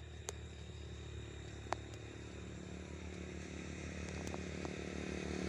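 An engine running steadily and getting gradually louder, as if a motor vehicle is drawing near, under a low hum. A sharp click sounds about a second and a half in.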